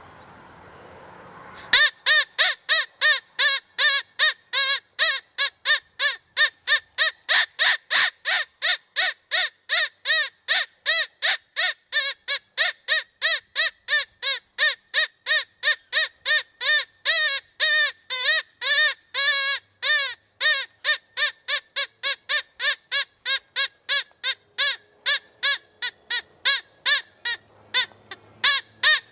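Rabbit squealing call, a long run of short, rising-and-falling squeals repeated about three times a second. It starts abruptly about two seconds in and briefly comes faster in the middle.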